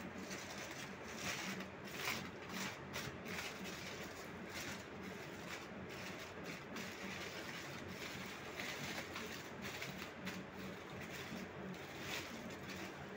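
Aluminium foil crinkling and rustling as it is handled and peeled back, in many small irregular crackles, over a low steady hum.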